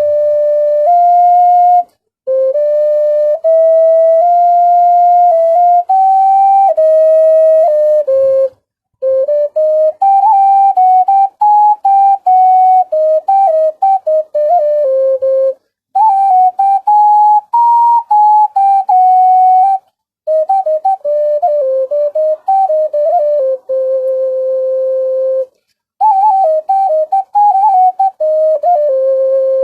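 A 5-hole ocarina played solo: a tune in a minor key, moving in steps with quick ornamented turns, played in phrases broken by short pauses for breath.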